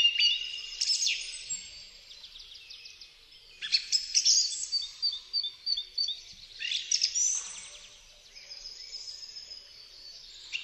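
Several songbirds singing: overlapping high trills and rapid runs of repeated notes, with fresh song phrases starting three times.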